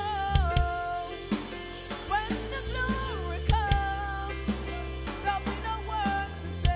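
Live worship music: a woman sings a sliding, melismatic melody over a keyboard with deep sustained bass notes, while a drum kit plays, its kick drum thumping a few times.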